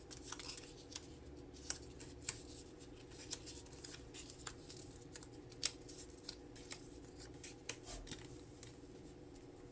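Faint, irregular light clicks and taps as punched paper circles are picked up and set down on a cardstock base, over a low steady hum.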